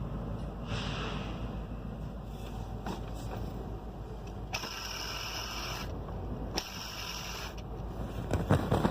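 BMW M54 straight-six engine running, its belt drive giving off high scraping squeals in three bursts of about a second each, which the owner puts down to a bad water pump and worn drive belt pulleys. A few louder knocks come near the end.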